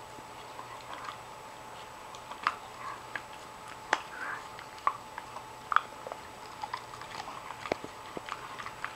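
Akita dog gnawing a small, worn-down hoof chew: irregular crunching with sharp, separate cracks of teeth on hard hoof, a handful of them louder than the rest.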